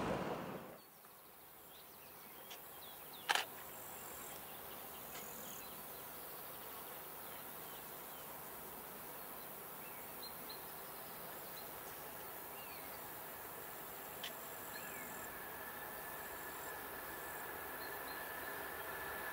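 Insects chirping, with one sharp click about three seconds in. Near the end a faint steady whine comes in and slowly grows louder as an electric train approaches along the line.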